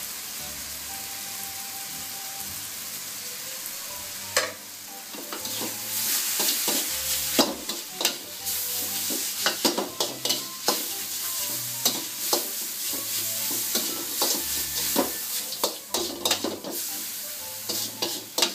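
Pad thai noodles and vegetables sizzling in a hot metal wok. From about four seconds in, a metal spatula scrapes and clacks against the wok again and again as the noodles are tossed.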